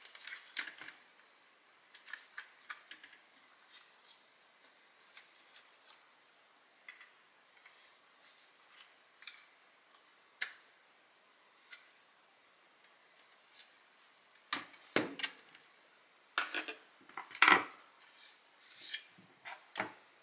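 Hand tools and small hard parts being handled during a repair: scattered clicks, taps and short scrapes. These turn into a louder, busier run of knocks and scrapes over the last quarter.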